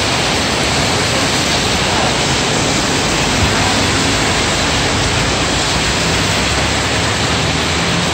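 Heavy rain pouring onto wet pavement, a steady hiss. A vehicle drives past on the wet road partway through.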